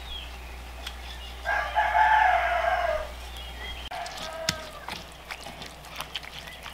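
A rooster crows once, about a second and a half long, starting about 1.5 s in. From about 4 s on, a stone pestle knocks and grinds against roasted tomatoes and chiles in a basalt molcajete, in short sharp clicks.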